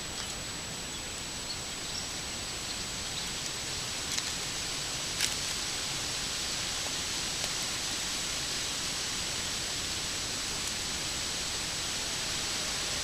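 Steady hiss from a trail camera's microphone with a thin, constant high-pitched whine, growing slightly louder, and a few faint clicks about four and five seconds in.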